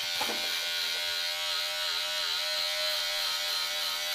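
Electric hair clipper buzzing steadily as it trims the hair at the back of the head, its pitch wavering briefly about two seconds in.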